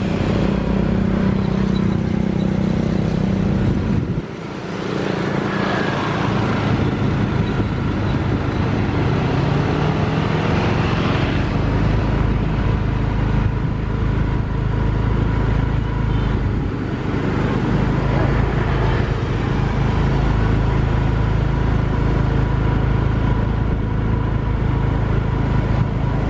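Steady running noise of a vehicle in motion with a low engine hum; the level dips briefly about four seconds in, then the hum settles and holds steady.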